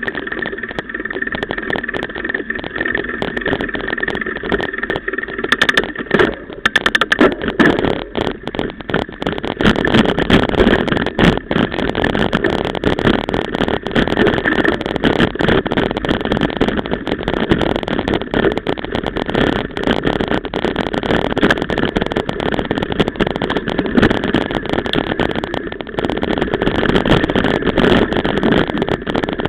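Mountain bike ridden fast over a rough forest trail, heard from a camera on the bike or rider: constant rattling and knocking from the bumps, with tyre and wind noise. The rattling gets heavier about seven seconds in.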